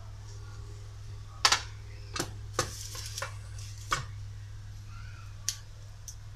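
Metal tongs clinking against the pressure cooker pot and the foil-capped glass flasks inside it. There is a cluster of sharp knocks from about one and a half to four seconds in and one more near the end, over a steady low hum.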